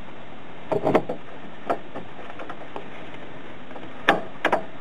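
Half-inch ratchet and large socket working the transmission cooler line fitting on a radiator: a few sharp metallic clicks and knocks, a cluster about a second in, one more shortly after, and another cluster of three near the end, over a steady hiss.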